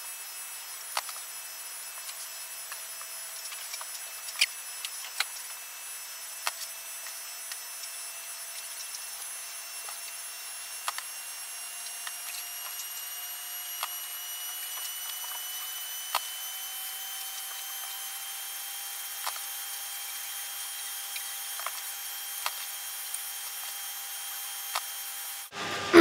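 Scattered light plastic clicks and taps, every second or two, as hands turn a Rubik's cube and press small Lego pieces onto it, over a steady hiss with faint high whines that slowly rise in pitch.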